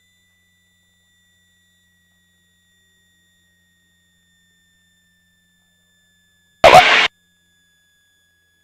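Faint steady high-pitched whine with two tones, the lower one sagging slightly in pitch, broken about six and a half seconds in by a single short, loud noise burst lasting about half a second.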